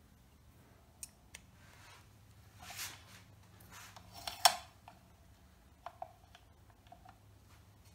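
Small clicks and taps of metal pen-kit parts being handled and fitted to a turned pen barrel. There is a soft rustle about three seconds in and a sharper click about four and a half seconds in, over a faint low hum.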